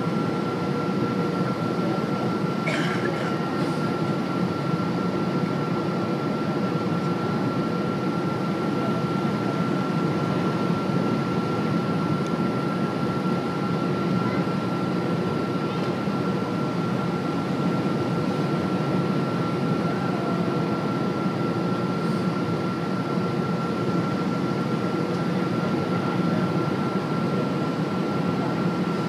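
Steady cabin noise of a Boeing 777-200ER on final approach: a constant rush of engine and airflow, with a thin, steady high whine running through it.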